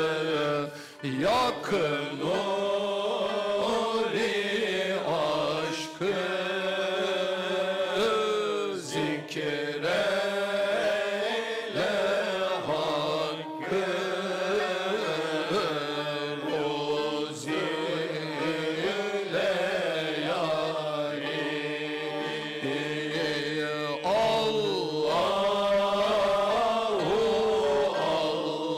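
Male Sufi chorus chanting an ilahi (Sufi hymn) in makam hicaz, as in a devran zikr circle. Long melodic phrases of a few seconds slide over a steady low tone held underneath.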